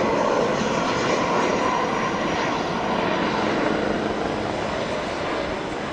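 Jet aircraft engines, a steady rush of noise that slowly grows fainter over the last few seconds.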